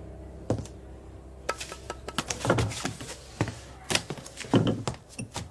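Café handling sounds: irregular knocks and clicks on wood, with a few heavier thumps.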